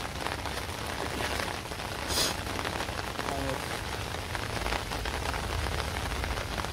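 Torrential rain pouring steadily onto a wet paved road: a dense, even hiss of drops.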